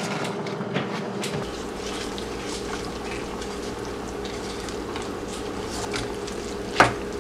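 Pot of vegetable soup simmering with soft, steady bubbling while fresh spinach is stirred in with a wooden spoon, over a steady hum. A sharp knock near the end.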